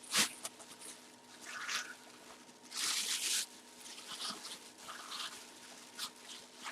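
Packaging being handled while a mini helmet is unboxed: several short bursts of rustling and scraping, the longest about three seconds in.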